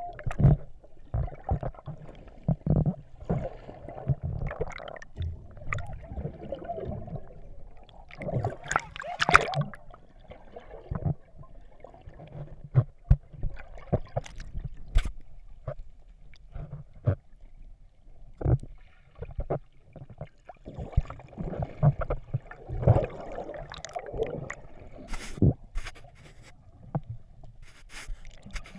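Muffled water heard underwater: uneven sloshing and gurgling in surges, with scattered sharp knocks and clicks.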